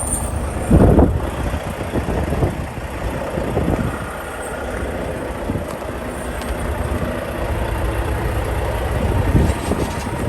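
Semi truck's diesel engine running with a steady low rumble, with a brief louder swell about a second in and another near the end.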